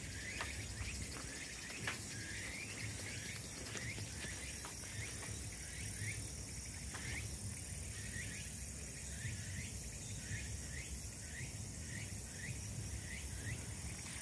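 Faint summer outdoor ambience of insects: a steady high hiss with a short rising chirp repeating a little under twice a second, over a low rumble.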